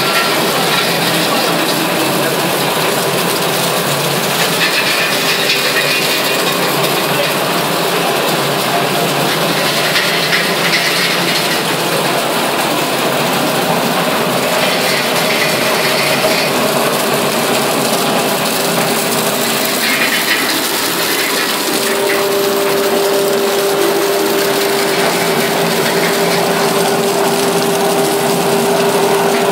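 Flake ice machine running: a steady, dense mechanical clatter. A steady hum comes in about two-thirds of the way through.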